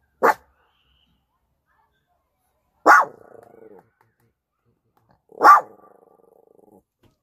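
Small dog barking: three short, sharp barks about two and a half seconds apart, the last two trailing off into a fainter, drawn-out sound.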